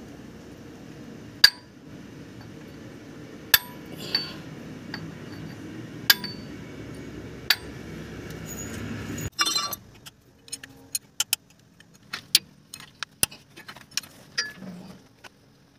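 Steel hand tools clinking against an engine's timing gears and bolts: a sharp metallic clink with a short ring every second or two, then, after about nine seconds, a quicker run of small metallic clicks and taps.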